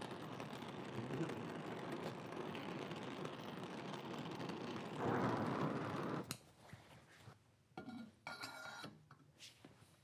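Oxy-acetylene torch with a number 4 tip hissing steadily while it heats steel to a dull red, stopping suddenly with a click about six seconds in. A few faint metallic clinks and scrapes follow.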